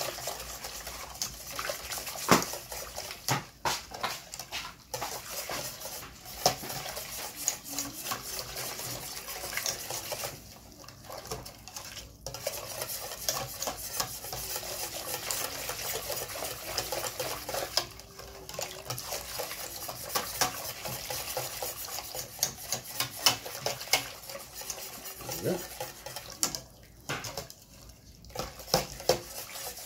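Wire whisk beating a milk sauce in a stainless steel stockpot: rapid rattling and scraping of the wires against the pot, with a sharper clink now and then. The flour-and-butter dough is being whisked into hot milk to make a béchamel.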